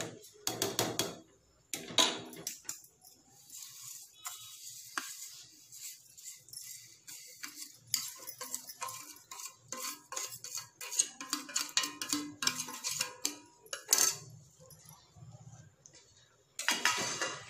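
Steel utensils clinking and scraping: a spoon scrapes vermicelli off a steel plate into a steel pot of milk and a steel ladle stirs and taps against the pot, in many short clicks. There is a sharper clank near the end.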